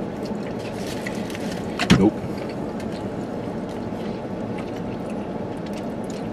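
Steady background noise inside a car, with one short, sharp sound about two seconds in.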